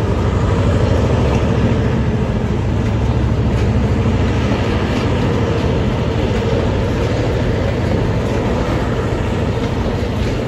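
Empty two-deck car-carrier freight wagons rolling past, a steady loud rumble of wheels on rail with a few faint clicks from the wheels.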